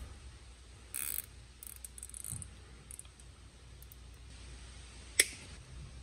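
Nylon zip tie being pulled tight around a bundle of wires, its ratchet zipping briefly about a second in, followed by a few small ticks and one sharp click about five seconds in.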